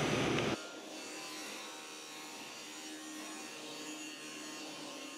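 A steady rushing noise cuts off suddenly about half a second in, leaving a faint steady hum.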